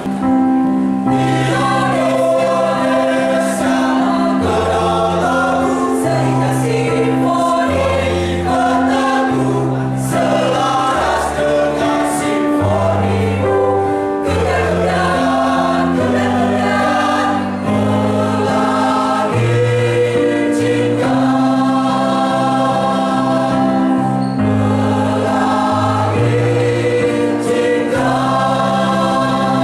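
Choir singing with musical accompaniment, sustained chords over a steady low bass line, starting right after applause.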